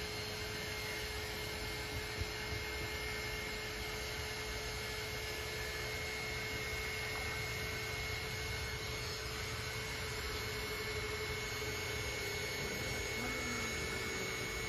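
Steady motor hum with a thin higher whine above it, holding at one level with no change.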